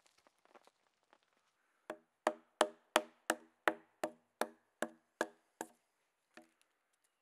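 Axe chopping into a log to cut a saddle notch: about eleven quick, even strokes, roughly three a second, each with a short woody ring, starting about two seconds in, then one lighter stroke near the end.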